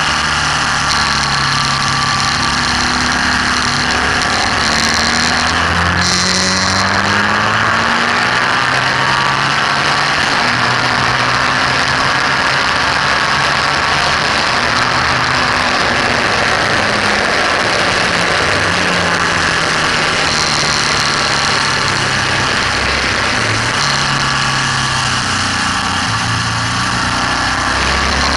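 BMW R1200S's boxer twin engine at full track pace, its note rising as it accelerates through the gears and falling on the overrun, over heavy wind noise on the microphone.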